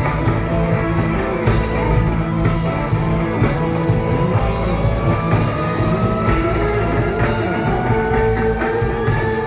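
Live jam-band rock music from a concert stage, played loudly. From about halfway a held tone glides slowly upward in pitch.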